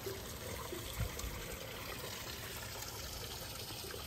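Steady trickle of running water, with a single low bump about a second in.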